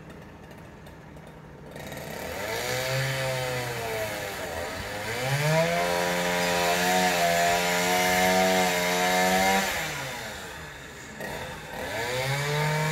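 Two-stroke chainsaw revved up to full throttle, held steady for about four seconds, then dropped back and revved up again near the end, cutting into a wooden pile.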